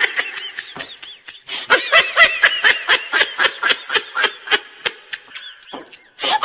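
High-pitched laughter: a quick run of short giggles, about five a second, that grows fainter near the end.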